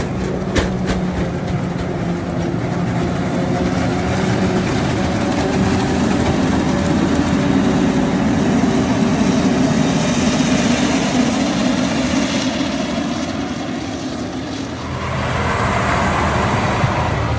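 Diesel engines of heavy harvest machinery running steadily close by: a Claas Jaguar self-propelled forage harvester chopping corn silage and John Deere tractors hauling silage wagons. The sound changes character about fifteen seconds in.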